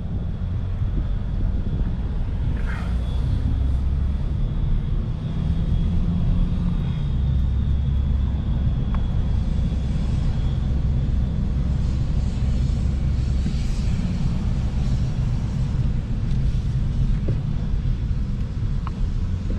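Steady low rumble of a car driving, with a faint high steady tone through the first half.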